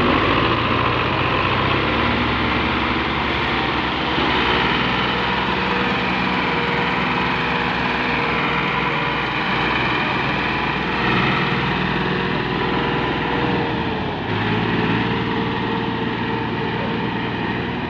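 Tractor diesel engines running hard under load, hauling a trailer heavily loaded with sacks out of soft, broken ground. The engine sound is steady throughout, with no break.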